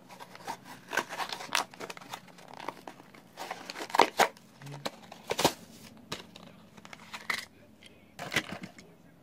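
Hands handling a small die-cast toy train engine close to the microphone: irregular clicks, taps and rustles.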